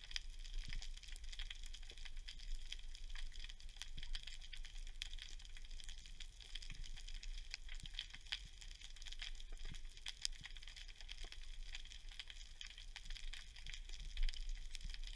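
Underwater reef ambience: a steady, dense crackle of tiny irregular clicks, typical of snapping shrimp, over a low constant rumble.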